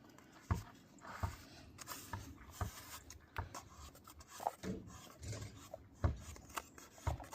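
Hands working a loosened spin-on oil filter off the engine over a cardboard catch: light rubbing and scraping with a dozen or so irregular small clicks and knocks.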